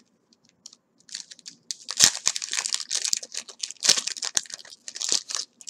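Pokémon booster pack's foil wrapper being torn open and crinkled by hand: dense crackling that starts after about a second and a half of quiet, with loudest rips about two and four seconds in.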